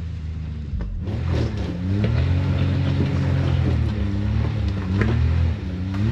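Side-by-side UTV engine revving up and down in repeated throttle bursts as it climbs a rocky obstacle, with a sharp knock about five seconds in.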